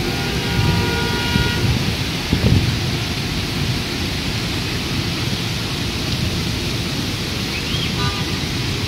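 Heavy rain pouring steadily over a city street, with thunder rumbling low and a loud jolt of it about two and a half seconds in. A car horn sounds briefly at the start and again near the end.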